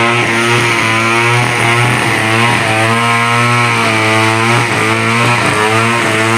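Two-stroke chainsaw engine running steadily at part throttle, its pitch wavering slightly as the speed shifts.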